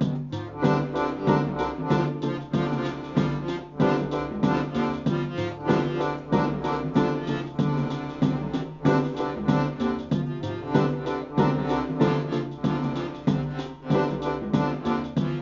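Accordions and an electronic keyboard playing together over a sequenced electronic beat, with a steady pulse and a held bass line.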